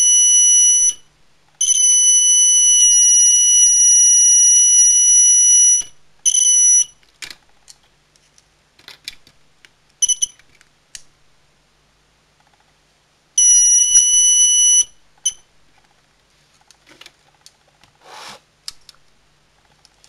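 Alarm horn of a snap-together kit burglar-alarm circuit sounding a steady, high-pitched electronic tone in on-off bursts as the circuit is triggered. The longest burst lasts about four seconds, and there are a few shorter ones and a brief blip, with small clicks of clip leads being handled between them.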